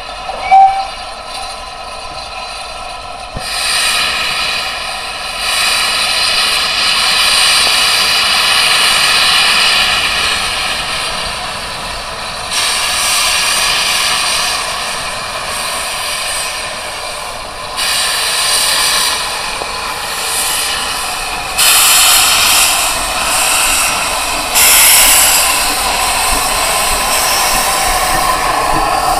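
Steam railmotor No. 93 hissing loud steam from beneath its underframe as it gets under way, the hiss rising and falling in long surges. A short sharp high note sounds just after the start.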